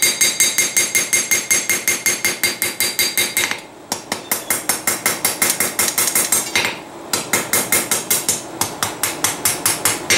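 Light blacksmith's hammer striking hot steel rebar on an anvil in quick, even blows, about four or five a second, with a metallic ring over the first few seconds. The blows flatten the edge of a forged spoon bowl to an even thickness. There are two short breaks in the strikes, one around four seconds in and one around seven.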